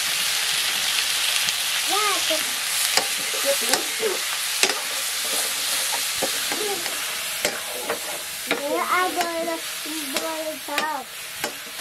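Chicken pieces sizzling as they fry in a steel wok, with a metal ladle stirring and knocking against the pan now and then. The sizzle is strongest at first and eases off toward the end.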